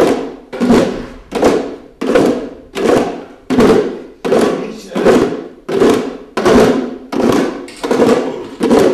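Hand drums struck in a slow, steady beat of about four strokes every three seconds, each stroke ringing out briefly.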